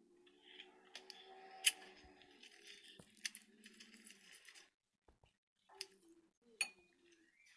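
Scissors cutting open filled rubber balloons: several sharp snips over a steady crinkly hiss for the first four seconds or so, then two more snips near the end.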